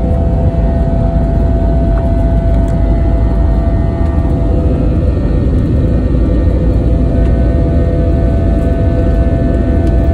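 Jet airliner's engines heard from inside the passenger cabin as the plane rolls along the runway: a loud, steady rumble with a steady whine over it.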